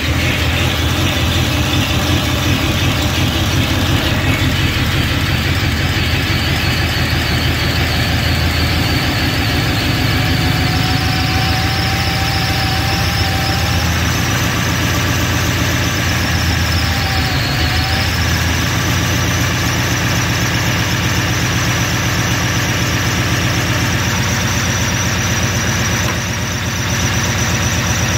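1936 Ford 21-stud flathead V8 running at a steady idle.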